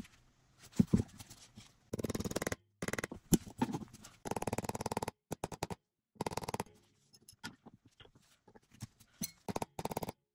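Roll pin being fitted into the grip of a Taurus 856 revolver: several short bursts of rapid scraping and clicking, with pauses between.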